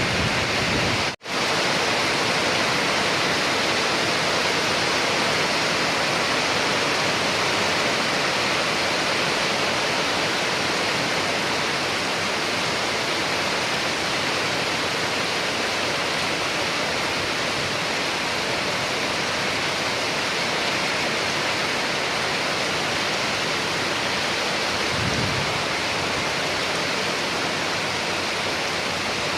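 Steady, dense rainfall hiss, even and unbroken except for a split-second dropout about a second in. There is a brief soft low rumble near the end.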